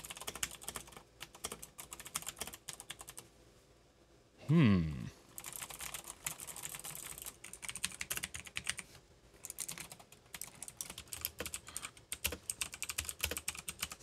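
Typing on a Keychron K8 mechanical keyboard fitted with new Selectric-style keycaps: a quick run of key clicks for about three seconds. About four and a half seconds in there is a short, loud hum of the voice falling in pitch, and then typing goes on in two runs on a second keyboard.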